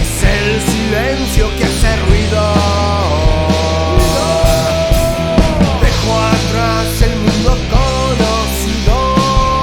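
Rock band playing an instrumental passage: a lead melody holds and bends its notes over steady bass and drums.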